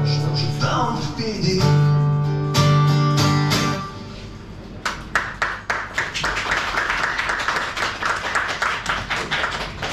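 Acoustic guitar playing the closing chords of a blues song, which ring out and fade just before four seconds in. Audience applause starts about five seconds in and carries on.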